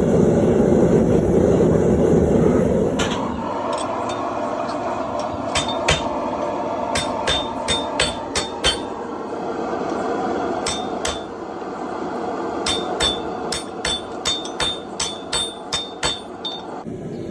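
Hammer and sledgehammer blows on hot 1-inch round steel stock on an anvil, each strike ringing. The blows come in short runs, the longest near the end at about three strikes a second, over a steady rushing noise that is loudest in the first three seconds.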